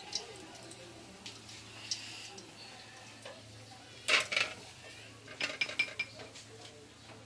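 Metal wire frying strainer clinking and knocking against cookware and a plate as it is handled and set down. There are a few light clinks, the loudest cluster about four seconds in, then a quick run of clinks about a second later.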